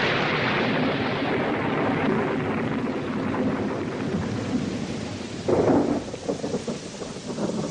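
Thunder: a rumble dying away after a clap, then a second thunderclap about five and a half seconds in, over a steady rushing hiss.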